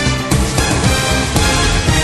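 Loud music with a heavy bass and many layered tones, playing continuously.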